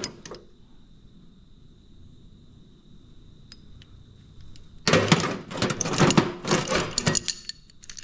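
Steel jaw-type gear pullers clanking and rattling against each other and the drawer as they are handled and lifted out of a tool-chest drawer. The clatter comes as a burst of rapid metal knocks for a couple of seconds about five seconds in, after a quiet stretch with a faint steady high whine.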